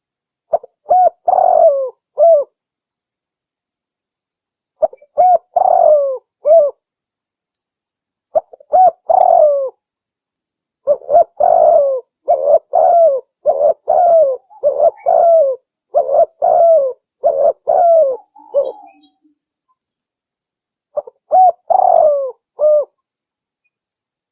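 Spotted dove cooing: groups of short, falling coos with silent pauses between them, and a longer unbroken run of coos in the middle.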